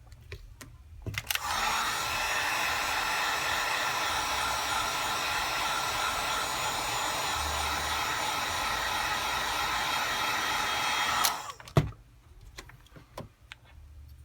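Hot-air blower running steadily for about ten seconds, a blowing rush with a fan whine, warming the phone's back glass to soften its adhesive. It clicks on about a second in and cuts off suddenly near eleven seconds, followed by a few light clicks.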